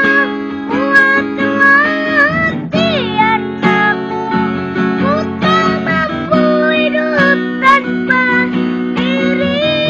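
Acoustic guitar strummed in chords, accompanying a young boy singing a wavering melody.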